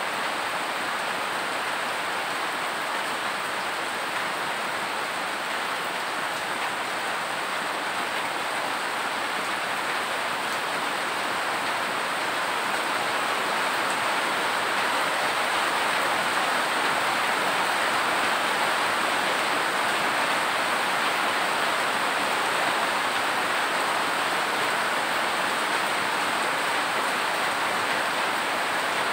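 Steady rain falling, an even hiss that grows slightly heavier about halfway through.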